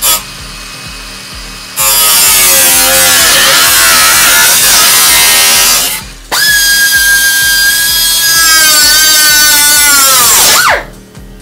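Angle grinder with a cut-off wheel cutting rusty sheet steel, run twice for about four seconds each with a short stop in the middle. In the first run the motor's pitch sags and wavers as the wheel bites into the metal. The second run is a steady high whine that falls away as the grinder winds down near the end.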